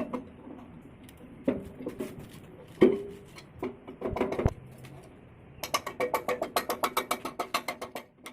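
Metal parts of a grass chopper knocking and clinking as they are handled, each hit ringing briefly. Over the last few seconds comes a fast, even run of ticking clicks, about seven a second.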